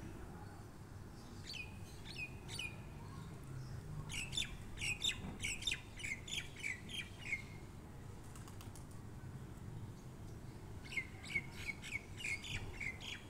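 A small bird chirping faintly in runs of quick, falling chirps: a few about a second and a half in, a longer run from about four to seven seconds, and another near the end.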